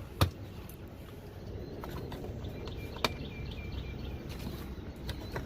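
Sharp clicks as the spring clips on a Freightliner Century's air filter housing are snapped open: a loud one just after the start and a softer one about three seconds later.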